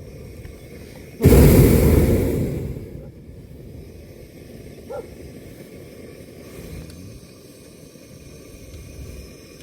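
Hot air balloon's propane burner firing in one sudden blast about a second in, dying away over the next two seconds. A low steady hiss otherwise, with a brief faint high sound about halfway.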